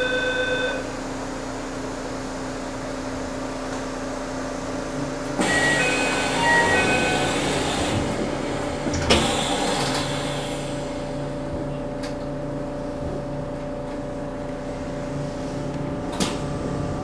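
Commuter train standing at a station with its doors open: a steady electric hum, and about five seconds in a short electronic door chime of a few notes over a rush of noise, followed by a sharp knock about four seconds later as the sliding doors shut. A smaller knock comes near the end.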